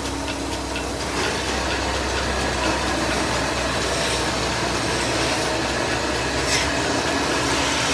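Wood-turning lathes running steadily, a continuous machine noise with a low hum underneath.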